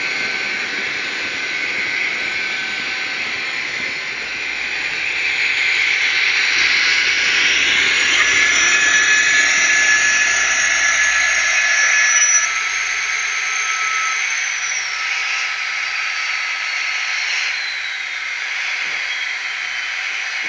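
ESU LokSound sound decoder in an HO-scale model of an SNCF BB 67300 diesel locomotive, playing a diesel engine sound through its small speaker together with the rolling of a long rake of wagons on the track. The sound grows louder over the first dozen seconds, then eases off, and a high whine falls steadily in pitch near the end.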